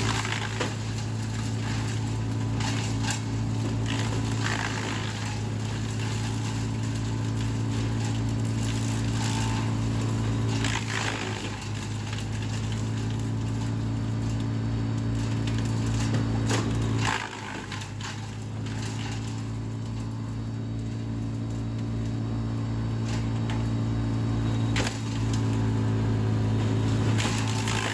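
Vermeer BC700XL wood chipper running steadily at high engine speed, with scattered crackles of branches being fed in and chipped. The sound drops somewhat quieter about two-thirds of the way through and comes back up near the end.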